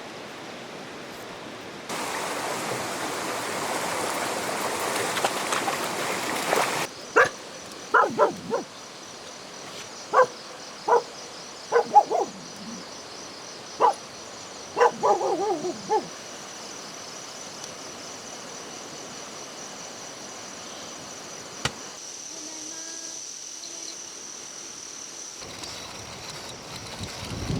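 A dog barking about a dozen short times over several seconds, a few barks sliding down in pitch. Before that comes a few seconds of steady rushing water, and under the barks a steady high insect buzz.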